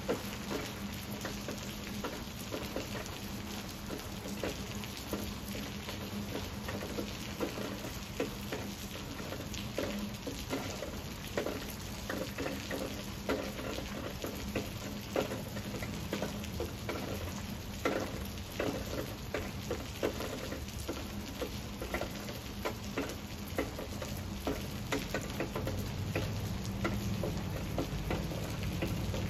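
Steady rain falling on leafy vines, with many individual drops ticking sharply on the leaves. A low rumble of thunder builds near the end.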